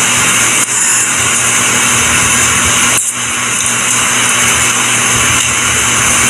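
Loud, steady hiss of noise like static, briefly dipping about half a second in and again about three seconds in.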